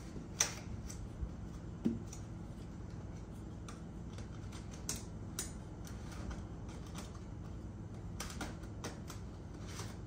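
Irregular plastic clicks and creaks as a portable air conditioner's ribbed plastic exhaust hose is screwed by hand into its plastic end ring, the ribs catching and slipping in the ring as it turns. A few louder clicks stand out, about half a second in, near two seconds, around five seconds and near the end.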